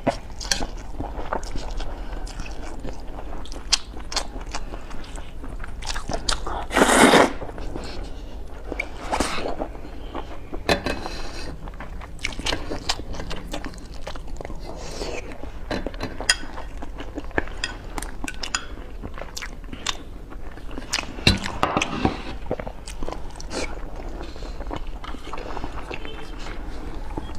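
Close-miked mouth sounds of a person eating vermicelli glass noodles: wet chewing with many small clicks and smacks, and one louder, longer noisy burst about a quarter of the way through.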